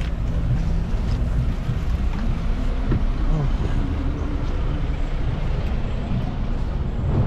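A bus engine idling, a steady low rumble, with city traffic around it.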